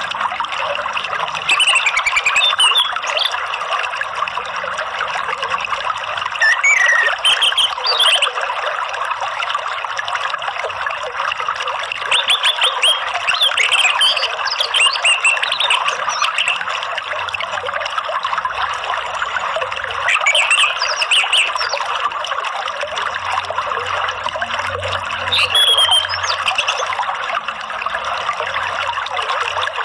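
Steady rush of running water, with short bursts of songbird whistles and chirps breaking in about six times, every few seconds.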